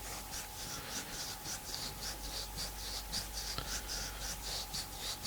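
A person scratching an itchy arm with the fingernails: quick, scratchy rubbing strokes, about four a second, in an irregular rhythm.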